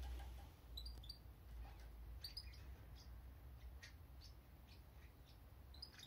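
Caged European goldfinches giving faint, short chirps, a few scattered at irregular gaps, over a low steady hum.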